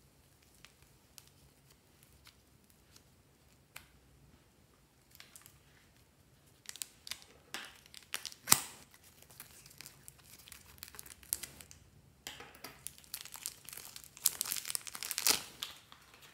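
Thin plastic clay packet crinkling and tearing as it is handled and opened. The sound comes in short crackly bursts from about six seconds in, with a sharp snap near the middle and the loudest, densest crinkling near the end.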